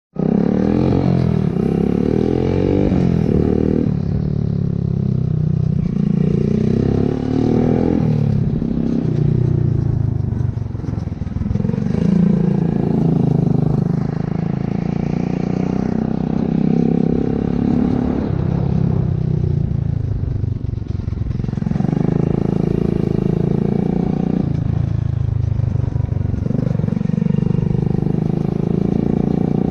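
A vehicle engine running continuously, its pitch rising and falling slowly as if under way.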